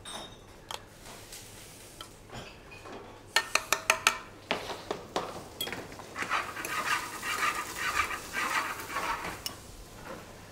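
Metal spoon and stainless steel dishes: a quick run of sharp clinks about three and a half seconds in, a few more a second later, then several seconds of rapid scraping and clatter.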